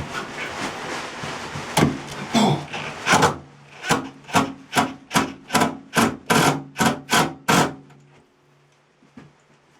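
A screw being driven into wood: about three seconds of dense grinding, then a run of about ten evenly spaced rasping strokes at roughly two a second. The screw is meeting something hard behind the surface.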